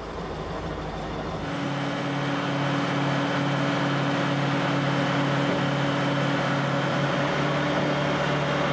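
Steel-mill slab carrier running with a steady engine hum, picking up and growing louder about a second and a half in.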